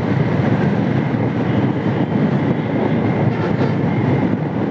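Steady riding noise of a 125cc motorcycle cruising at speed: wind rushing over the microphone, mixed with the engine and tyres on the road.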